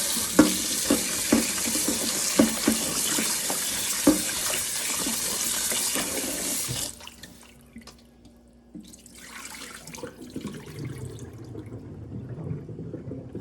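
Kitchen tap running hard into a sink, with several knocks of things handled under the stream. It shuts off abruptly about seven seconds in, then runs again briefly a couple of seconds later.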